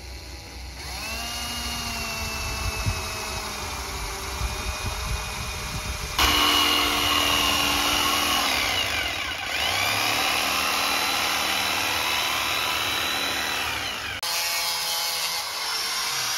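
Electric power tool running under load while cutting into the boat's dash panel, its motor whine sagging slightly in pitch. It gets louder and higher about six seconds in, dips briefly in pitch near the middle, and drops to a lower note about two seconds before the end.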